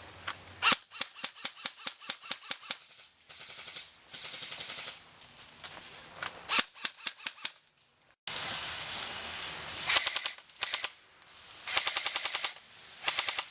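Airsoft guns firing in rapid strings of sharp shots, several bursts back to back with short pauses between them.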